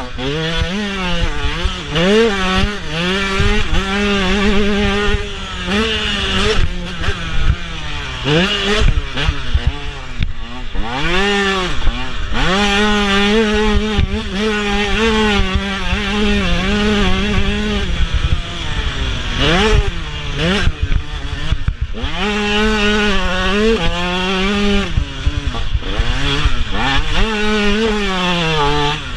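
2016 TM 125 two-stroke single-cylinder motocross engine, heard close up, revving hard over and over. Its pitch climbs and falls back as it shifts through the gears, with stretches held at steady high revs.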